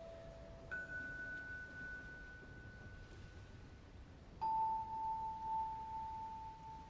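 Single struck bell notes, each starting sharply and ringing on as it slowly fades. A high note is struck about a second in, and a lower one a little past halfway, opening a piece of choral music.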